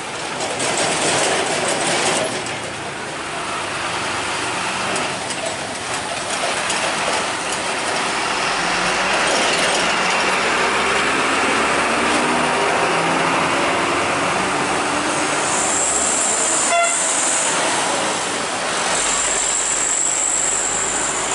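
Heavy diesel trucks and other road traffic driving past, one truck engine rising in pitch as it pulls through. A little over three-quarters of the way in, the sound changes abruptly to steady passing traffic with a high hiss.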